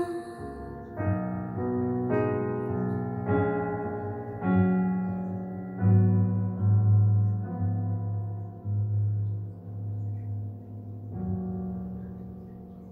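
Slow solo piano chords from a recorded song, played back over hi-fi loudspeakers, each chord left to ring and die away, growing quieter toward the end.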